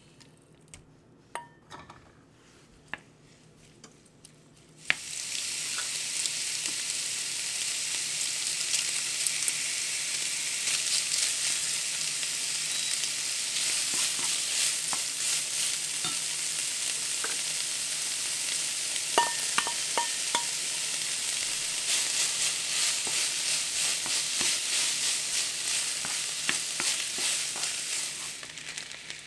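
Chopped pork belly with minced garlic sizzling in a hot oiled nonstick frying pan while being stirred with a wooden spoon. A few light knocks come first, then the sizzling starts suddenly about five seconds in and keeps on, with occasional clicks of the spoon against the pan, before falling away near the end.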